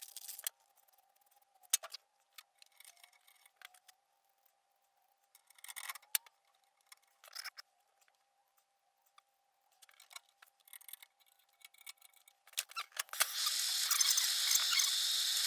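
Scattered small clicks, snips and scrapes of hand-tool work, then a loud steady hiss sets in near the end.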